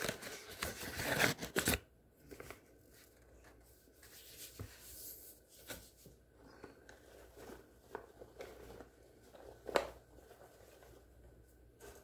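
A bag of flour rustling and crinkling as it is handled and its flour poured into a glass dish: louder for the first two seconds, then fainter rustles with a few light knocks, one sharper near the end.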